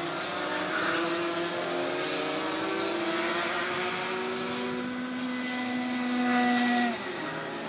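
Several Rotax Max 125 cc two-stroke kart engines racing, their whines overlapping and slowly rising in pitch. The nearest kart gets louder, then cuts back sharply about seven seconds in as it comes off the throttle.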